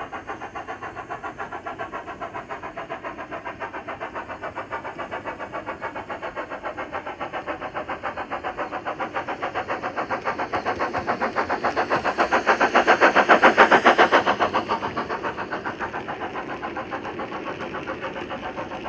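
Steam locomotive exhaust chuffing from a sound-fitted model of a Stanier 8F 2-8-0 freight engine, an even beat about five times a second. It grows louder to a peak a little past the middle, then fades as the engine passes.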